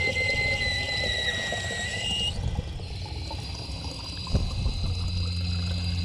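Water from an outdoor spigot pouring and splashing into a stainless steel bottle, with steady high tones over the splashing that shift a little about two seconds in. A sharp knock comes about four seconds in, and a low steady hum sets in after it.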